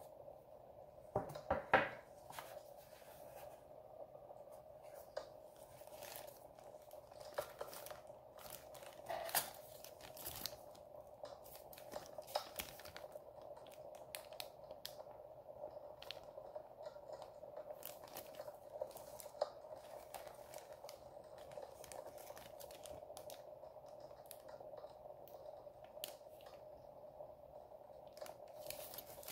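Plastic kit bags and clear plastic sprues crinkling and clicking as they are handled, in scattered short crackles, loudest about two seconds in, over a steady faint hum.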